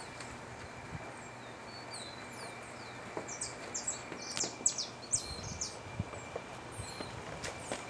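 Birds chirping: scattered short, high calls, with a quick flurry of downward-sweeping chirps in the middle, over a faint steady outdoor background.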